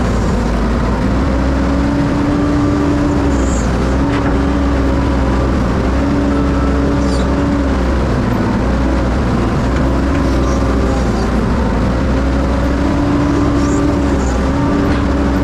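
Excavator's diesel engine running steadily as the machine travels, a continuous drone that wavers slightly in pitch every couple of seconds.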